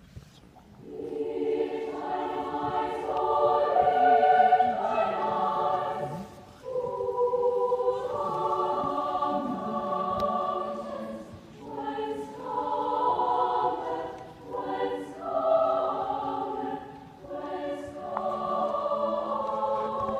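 A choir singing in long held phrases with short breaks between them, starting about a second in.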